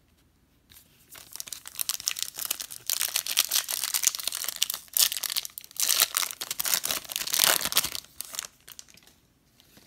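Foil wrapper of a 2020 Topps Finest baseball card pack crinkling as it is handled and torn open: a dense crackle that starts about a second in, breaks off briefly past the middle, and stops shortly before the end.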